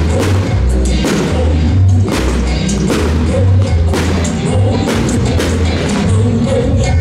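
Music with a steady drum beat and a pulsing bass line.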